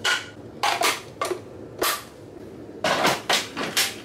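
Hard plastic clicks and clacks of a Ninja Creami ice cream maker's pint, outer bowl and lid being fitted together and locked into the machine: several separate sharp knocks, then a quick run of them near the end.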